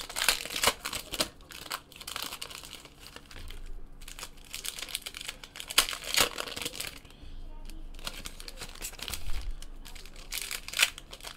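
Foil trading-card packs being torn open and crinkled by hand, with irregular crackling and ripping of the wrapper that comes and goes.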